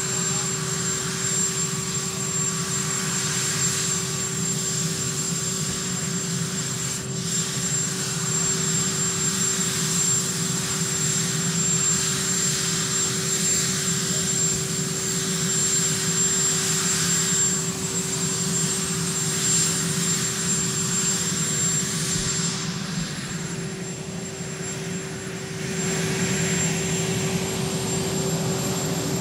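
Marine One presidential helicopter running on the ground: a steady turbine whine and engine noise. In the second half a high whine slowly rises in pitch, and the sound dips briefly near the end before coming back up.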